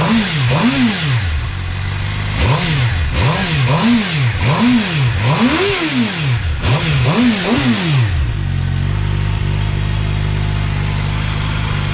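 Suzuki GSX-R750 inline-four revved through an Akrapovic slip-on exhaust with its sound-reducing baffle insert still fitted. There are about ten quick throttle blips, each rising and falling, and then about eight seconds in it settles to a steady idle.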